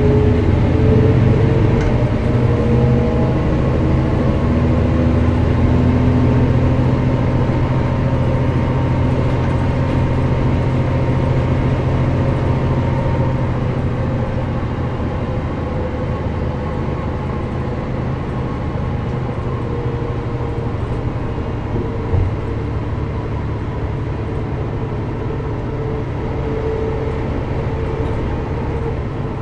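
Mercedes-Benz O405GN² articulated bus under way, its engine note rising steadily over the first several seconds as it accelerates, then settling into a quieter, steadier run about halfway through. A single short knock comes a little past two-thirds of the way through.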